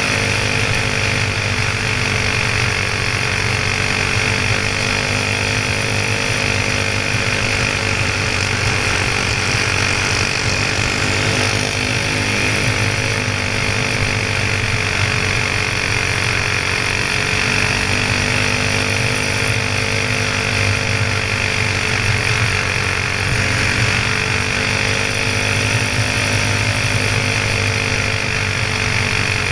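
Single-cylinder Honda clone engine of a dirt-oval racing go-kart running flat out near 6,000 rpm, heard on board. Its pitch dips slightly and recovers a few times as the kart goes through the turns.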